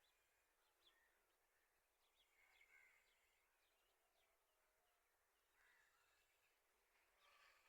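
Near silence with faint bird calls: scattered short chirps, a few clusters of them, over a low hiss.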